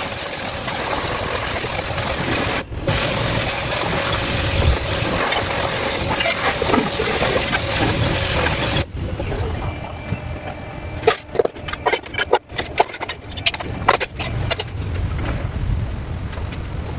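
Daihatsu Cuore engine running steadily, heard in a few short pieces that cut off abruptly. In the second half, a quick series of sharp clicks and knocks sounds over it.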